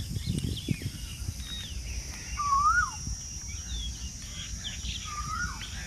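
Birds calling and chirping, with two louder calls that rise and then fall in pitch, one about two and a half seconds in and another near the end, over a steady high-pitched hiss.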